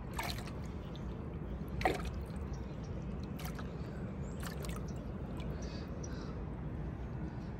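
A hand splashing in a bucket of water while grabbing a freshly netted mullet: a few short splashes and drips, the sharpest about two seconds in.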